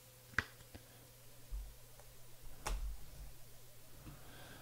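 Trading cards handled on a playmat by hand: a sharp click about half a second in and another near three seconds, with soft low thumps in between.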